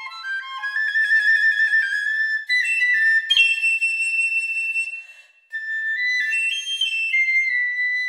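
Unaccompanied piccolo playing a fast melodic passage: a quick rising run into a rapid trill and high notes, a brief breath about five seconds in, then a phrase that settles on a long held high note.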